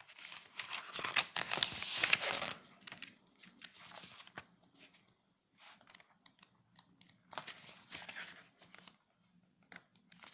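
Glossy catalogue pages being turned and flipped by hand, rustling. There is a long run of page-turning in the first couple of seconds, a shorter one about three-quarters of the way through, and light clicks and taps of paper in between.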